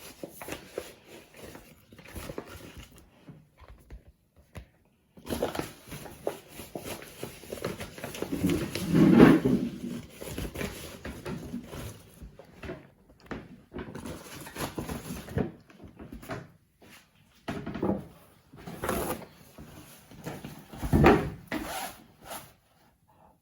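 Kitchen handling sounds as flour is measured into a mixing bowl: scooping and pouring, with intermittent knocks and scrapes of the measuring cup and bowl. The longest run of rustling comes about eight to ten seconds in, and a few sharp knocks come near the end.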